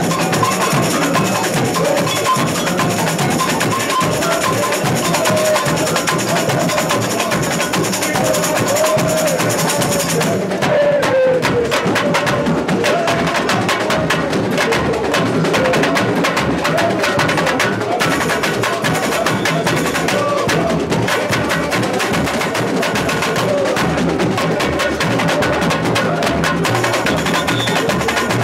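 Samba school bateria playing a fast samba rhythm: surdo bass drums, tamborins and metal chocalho shakers beating together, loud and unbroken.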